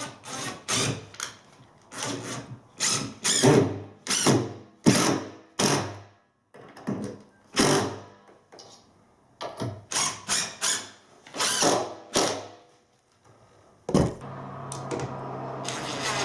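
Power drill run in many short bursts, typical of driving screws while fixing boards and packing in place. Near the end a steadier, continuous power-tool sound starts.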